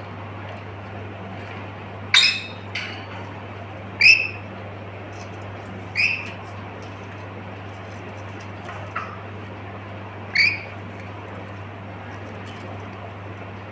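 A lory parrot giving short rising calls, about six in all, spaced a second or two apart, over a steady low hum.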